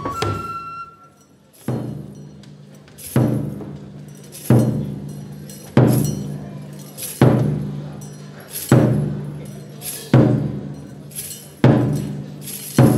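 Large Japanese barrel drum (taiko) beaten in a slow, even pulse, about one stroke every second and a half, each stroke ringing on. A flute note breaks off just as it begins, and the drumming starts about two seconds in.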